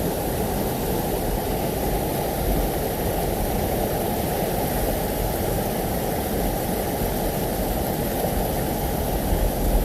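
Steady rushing of a waterfall, an unbroken noise with most of its weight in the low range.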